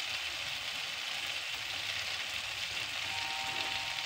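Tomatoes and spice masala frying in oil in a non-stick kadai over a low-to-medium gas flame, a steady soft sizzle with no stirring.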